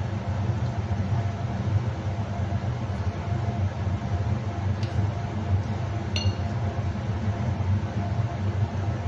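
A steady low mechanical hum runs throughout, with two light clinks of glass about five and six seconds in, the second briefly ringing.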